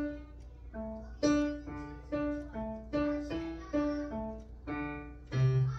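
A child playing a piano one note at a time, picking out a simple melody of about a dozen struck notes, each left to ring. A louder low note sounds near the end.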